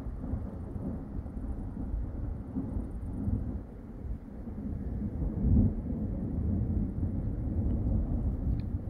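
Rolling thunder: a long, low rumble that swells to its loudest a little past halfway.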